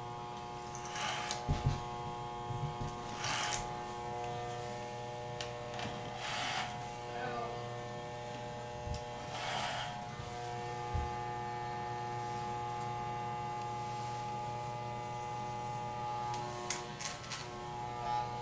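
Electric hair clippers running with a steady buzz, with several short, louder rasping passes as the blades cut through thick hair. A few sharp clicks come near the end.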